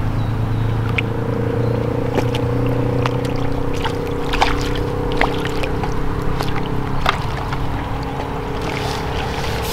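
An engine running steadily at an even pitch, with scattered light clicks and knocks over it.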